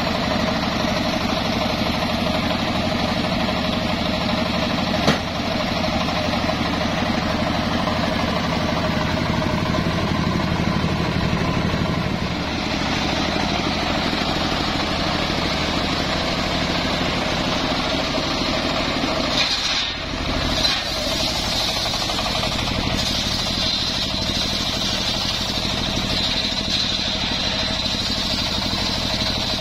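Engine-driven circular sawmill running steadily, its large blade spinning and ripping through a log of johar (kassod) hardwood, with a brief dip in the sound about twenty seconds in.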